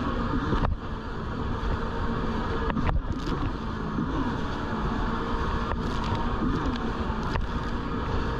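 Jet ski engine running at speed, its pitch wavering up and down with the throttle, under rushing water, spray and wind. A few sharp knocks break in now and then.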